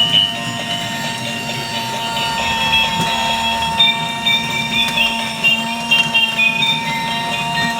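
Battery-powered toy robot running: a steady electric motor whine with a tinny electronic tune of stepping high beeps over it.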